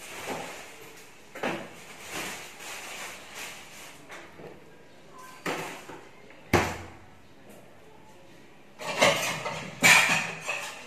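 Kitchen clatter: single sharp knocks of things being set down, then a louder run of dishes and utensils clinking and clattering at the sink near the end.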